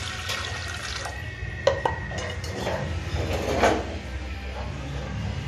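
Cookware being handled: a sharp clink about 1.7 s in and a longer clatter near 3.5 s, over a steady low hum.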